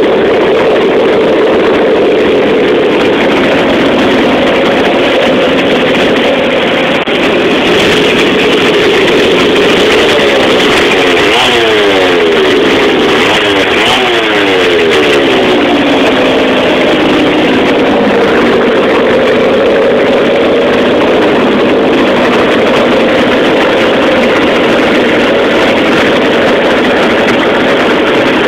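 Two Stihl Contra chainsaw engines, about 106 cc each, running together on a pocket bike: a loud, steady two-stroke sound, revved up and down a few times around the middle.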